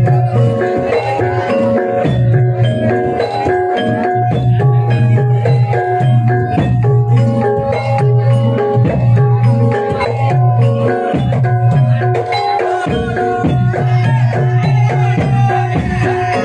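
Live jaranan (kuda lumping) dance music: struck metallophones play a repeating melodic pattern over drum strokes and a steady deep low tone.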